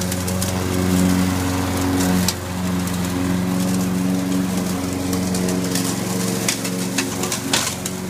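Gas engine of a remote-controlled robot lawn mower running steadily as the mower drives across the grass, with a few sharp ticks near the end.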